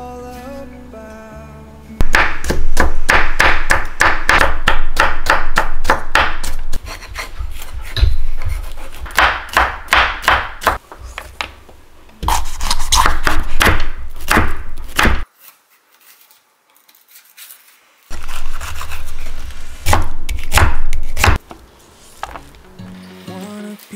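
Kitchen knife chopping bell peppers into thin strips on a wooden cutting board: quick, even cuts at about four a second, stopping for a few seconds past the middle and then starting again.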